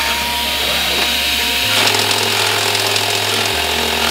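Handheld rotary die grinder running steadily while it grinds the steel frame around a crack down to bare metal, preparing the spot for welding.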